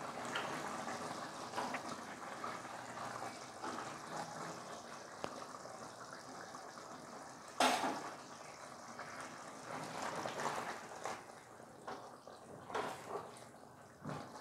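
Tamarind water being poured into simmering chicken curry gravy in a steel pot and stirred in with a spatula, faint liquid sloshing and scraping. One louder knock of the spatula against the pot about halfway through.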